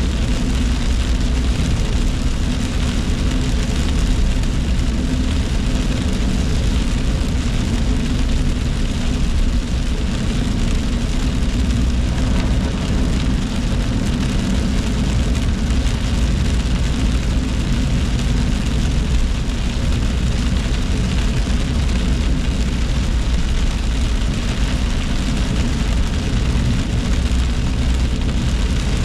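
Steady car-cabin noise while driving in heavy rain: road and engine noise with rain on the car, heard from inside.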